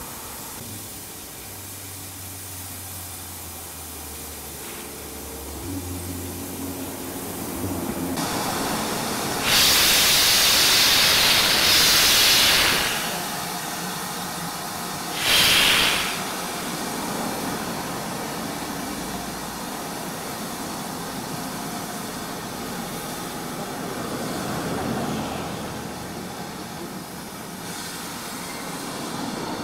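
GWR 56xx class 0-6-2T tank locomotive No. 5619 moving off, steam hissing loudly from its open cylinder drain cocks in two blasts about ten and fifteen seconds in, with a quieter steady hiss and rumble of the engine between and after.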